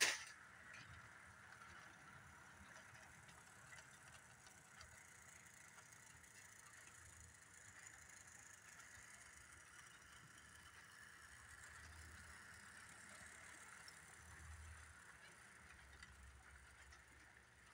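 Faint steady whir of a model train running: the motor of a model B&O F7 diesel locomotive and the passenger cars' wheels rolling along the track. A sharp click comes at the very start.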